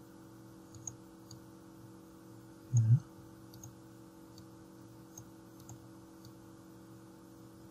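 Faint, scattered computer mouse clicks, about a dozen, over a steady low electrical hum. A short low vocal sound from a man comes about three seconds in.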